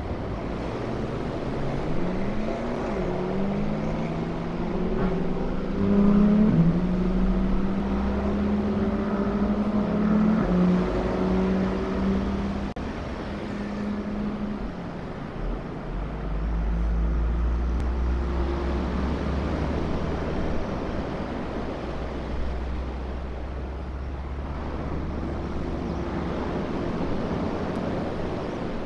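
Vehicle engine running. Its pitch rises and falls over the first fifteen seconds, then it settles into a low steady rumble.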